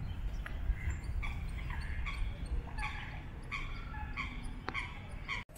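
A run of short, repeated animal calls, several a second, over a steady low rumble. The sound cuts out abruptly near the end.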